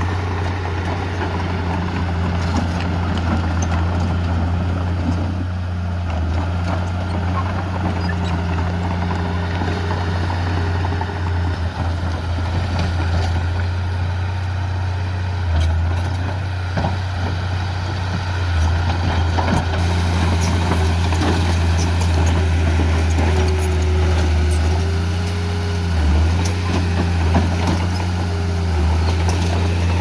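Heavy diesel earthmoving machinery running steadily with a low, even drone. The note dips briefly a few times in the second half, and faint light clicks are scattered throughout.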